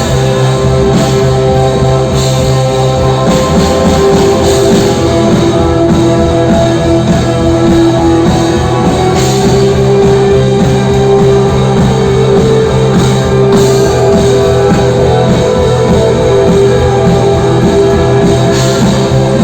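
Loud rock music with guitars and a drum kit, playing steadily.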